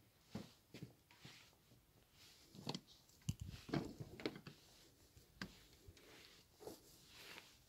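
Faint, irregular footsteps and rustling on a sailboat's fibreglass deck, about ten soft knocks, the loudest near the middle.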